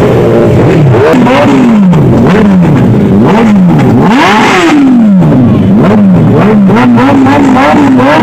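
Suzuki Hayabusa's inline-four engine revved again and again, about one blip a second, its pitch rising and falling each time, with the highest rev about four seconds in. Near the end it holds a steadier, higher idle.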